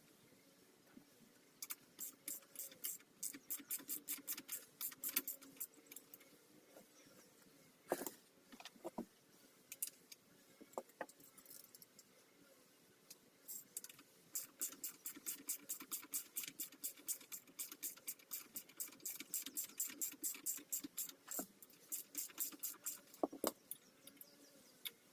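Ratchet wrench clicking in quick runs, about four clicks a second, in two long spells, with a few separate knocks of tool on metal between them.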